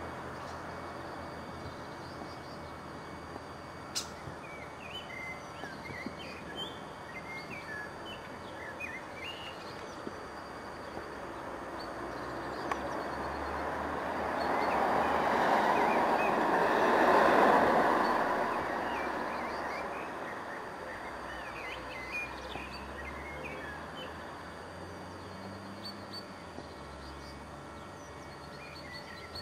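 Outdoor ambience: scattered small-bird chirps over a steady background noise, with a passing vehicle swelling up to its loudest about halfway through and fading away again.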